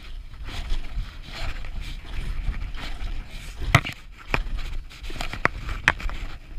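Boots crunching through snow as a hiker walks with trekking poles, over a low rumble of wind on the microphone. In the second half come about four sharp clicks or knocks.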